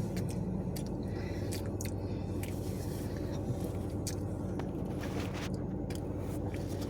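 A person chewing and biting pizza and fries close to the microphone, with short scattered clicks and scrapes over a steady low hum.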